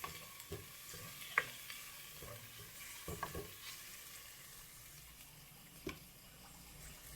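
Garlic frying in oil in a pan with a steady soft sizzle, stirred with a utensil that clicks and scrapes against the pan a few times.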